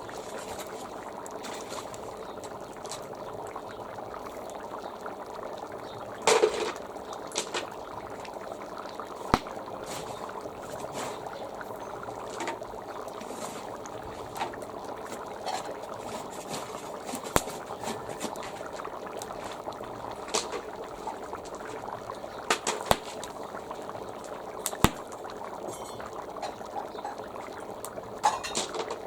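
Beef and vegetable stew bubbling in a kazan over a wood fire: a steady simmering hiss broken by scattered sharp pops and clicks, the loudest about six seconds in.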